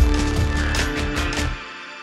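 Background music with a steady beat, which drops away briefly near the end.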